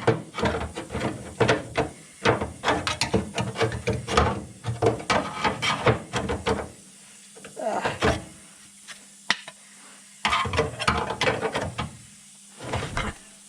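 Metal parts clattering, knocking and scraping in rapid clusters as a steel piece is tried into a rusted van cross member, with short pauses between bursts; a steady low hum runs beneath.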